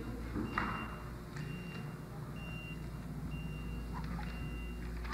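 An electronic alarm beeping steadily, one short high beep about once a second, over a low hum. A brief clatter comes about half a second in.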